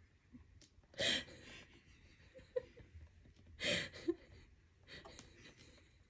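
Two short breathy human vocal sounds, about a second in and again near the four-second mark, with a few faint small blips between them.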